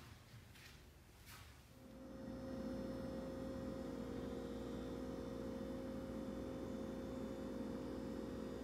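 A steady electrical hum with a few fixed tones comes in about two seconds in and then holds level, like a running household appliance. A couple of faint ticks come before it.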